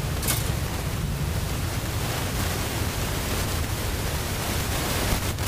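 Steady wind noise on the microphone: a constant low rumble under a broad hiss, with a brief click just after the start.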